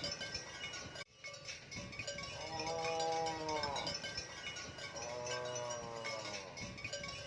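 Two drawn-out moos from cattle, each rising and then falling in pitch, over a background of many small high ringing tones like bells tinkling. The sound drops out briefly about a second in.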